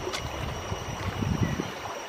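Shallow rocky stream running, with irregular low rumbling that peaks about a second and a half in.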